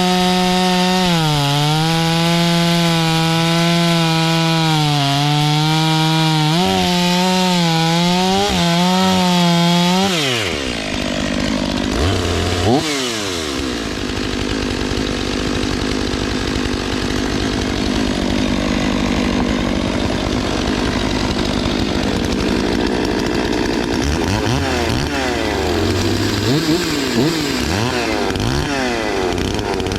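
Two-stroke chainsaw at full throttle, its engine note dipping and recovering several times as it loads up in cuts. About a third of the way in the throttle is released and the pitch drops sharply. The saw then runs lower and rougher, with short revs near the end.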